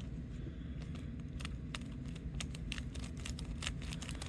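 Plastic 3x3 Rubik's cube being turned by hand, its layers clicking in quick irregular runs starting about a second in, over a steady low hum.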